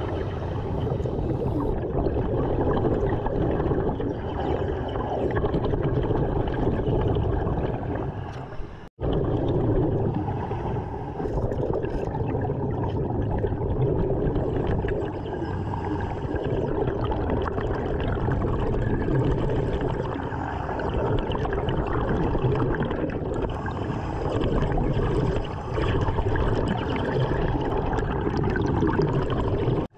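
Underwater sound of a diver breathing through a regulator, with air bubbling and gurgling out. It runs on without a break except for a brief dropout about nine seconds in.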